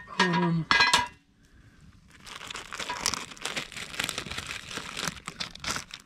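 A plastic zip-top bag crinkling as it is handled and opened, after a few sharp clinks in the first second.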